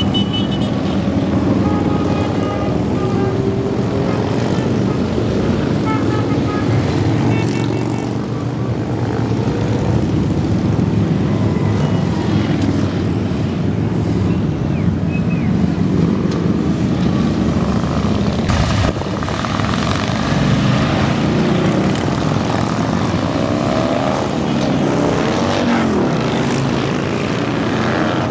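Motorcycle engines, mostly big cruiser and touring bikes, rumbling past continuously in a long procession. Engine notes rise and fall as individual bikes go by near the end.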